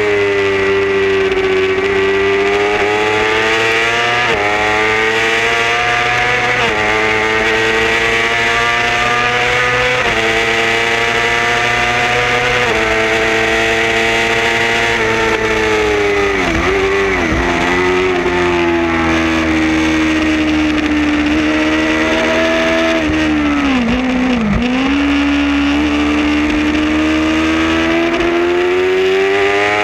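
Racing motorcycle engine heard onboard at full race pace, with wind rushing over the microphone. Its pitch climbs and drops back at several upshifts in the first half, then falls steeply with downshifts while braking for corners about halfway through and again later, before climbing back up near the end.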